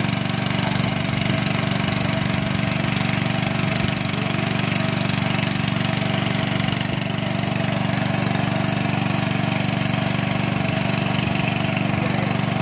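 Small engine-driven water pump running steadily at an even speed, pumping muddy water out of a freshly drilled bore well through spiral suction hoses.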